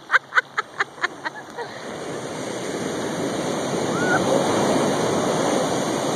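Ocean surf washing in: a rushing noise that swells over a few seconds and then holds. A quick run of short, evenly spaced pulses fades out in the first second or so.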